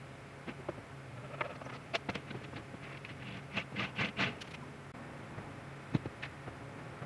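A homemade rotating spray-painting stand: square MDF boards knocked and set down on a workbench, and about halfway through the top board spun on its base, its metal fittings rattling and scraping for about a second. A sharp knock comes near the end, over a faint steady low hum.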